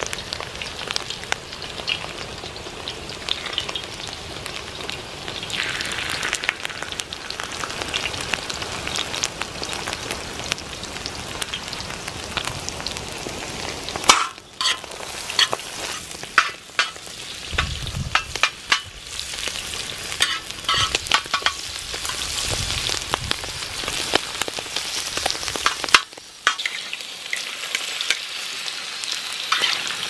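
Diced lamb sizzling and frying in hot oil in a saj pan over a campfire. In the second half a metal spatula clicks and scrapes against the pan as the meat is stirred. The sizzle changes abruptly twice.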